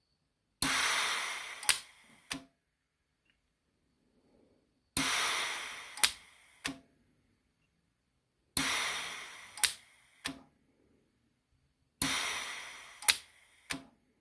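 Handheld spot welder with argon shielding gas setting four weld spots on brass, about three and a half seconds apart. Each spot is a sudden hiss that fades over about a second, then a sharp click and a second, smaller click.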